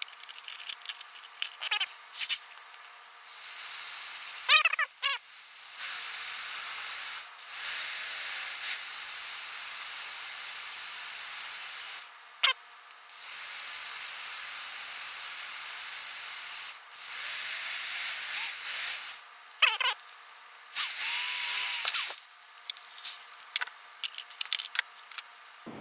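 Dremel rotary tool drilling a larger hole through a plastic model floor, run in about five bursts of a few seconds each with a steady high-pitched hiss. There are brief squeaks between bursts.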